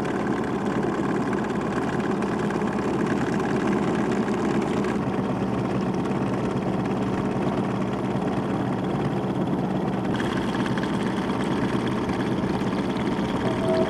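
Small fishing boat's outboard motor running steadily at low trolling speed, a constant even hum.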